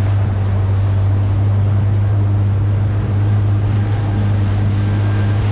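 Supercharged four-cylinder engine of a Kawasaki Ultra 310 LX-S jet ski running at steady throttle, a constant low drone over a loud rush of water and wind.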